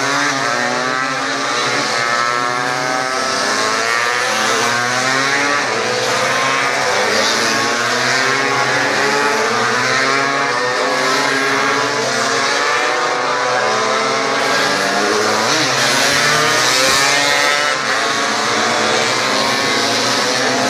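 Several classic two-stroke racing motorcycles revving hard one after another, many engine notes overlapping and rising and falling in pitch as the bikes accelerate past.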